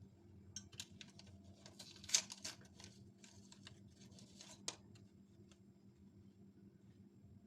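Short run of light clicks and rustling from food being handled and prepared, loudest about two seconds in and dying away by about five seconds.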